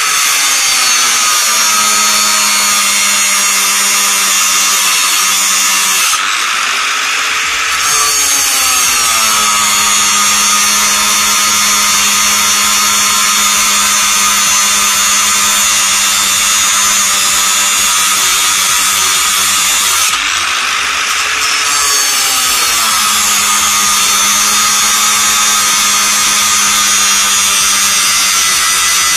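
Electric angle grinder with a cut-off disc cutting through steel, a steady loud whine with grinding noise. Twice it briefly eases off and the motor's pitch swings before settling back into the cut.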